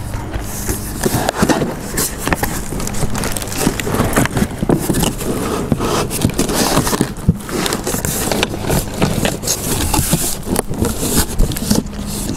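A long cardboard shipping box being turned over and opened by hand, its flaps scraping, bending and rustling, with many small irregular knocks and crackles.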